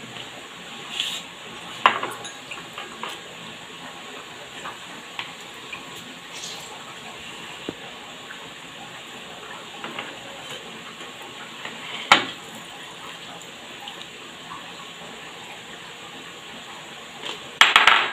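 A spoon clinking and knocking against a bowl while kachumbari salad is mixed, with a few sharp knocks and a short clatter near the end, over a steady faint hiss.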